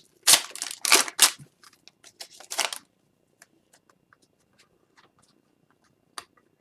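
Hockey trading cards being handled and flipped: a flurry of quick rustling snaps in the first second and a half, another short flurry about two and a half seconds in, then only faint ticks and one sharp click near the end.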